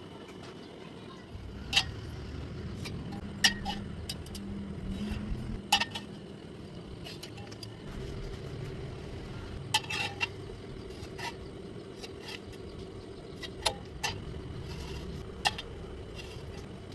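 Scattered sharp metallic clinks and knocks, a dozen or so at irregular intervals, as metal pieces are handled and set against each other, over a low steady hum.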